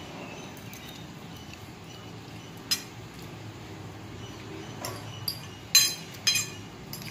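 Metal fork clinking against a glass bowl of noodles: a few sharp clinks, one before the middle and a cluster later on, the two loudest about two-thirds of the way through.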